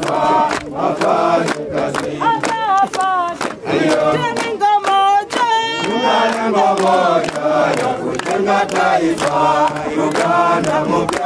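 A group of soldiers singing a chant together while clapping in time. Near the middle a single voice carries the song for a couple of seconds before the group comes back in.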